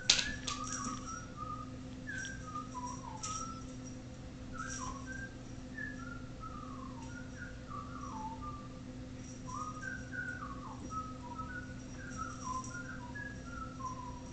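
A person whistling softly, a meandering run of short notes that mostly slide downward, over a steady low electrical hum. A sharp knock sounds right at the start.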